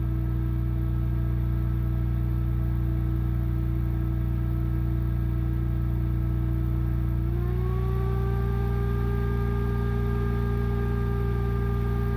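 Steady electrical hum of a Magnum inverter/charger and its cooling fan whirring while it charges batteries at a high rate from a diesel generator. About seven seconds in, a tone glides up slightly and holds higher as the charge current climbs.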